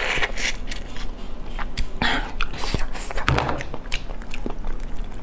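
Close-miked eating sounds of a raw-marinated black tiger prawn: the shell is bitten and sucked at, then cracked and peeled apart by hand, giving a run of sharp crackles and wet clicks.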